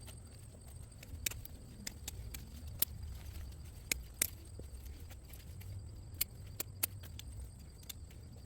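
Irregular sharp clicks and snaps, about a dozen at uneven intervals, over a low rumble, with a faint steady high-pitched tone.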